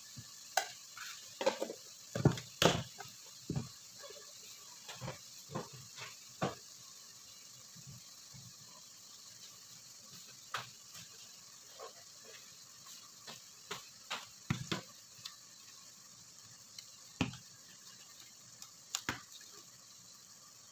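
Wooden spatula stirring and knocking against a stainless steel pot of browning minced lamb, over a faint steady sizzle from the pan. The knocks come thick and fast for the first several seconds, then only now and then.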